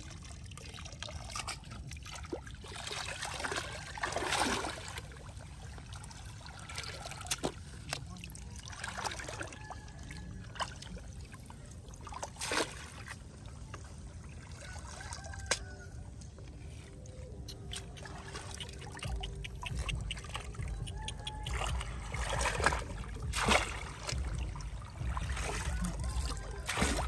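Shallow pond water splashing and trickling as a person wades and pulls clumps of water plants out of it, water dripping back off them; the splashes come separately every few seconds.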